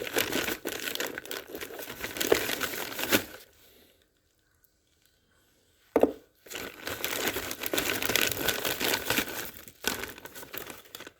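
Plastic packaging crinkling and rustling as small items are handled and unwrapped, in two stretches with a pause of about two seconds between them.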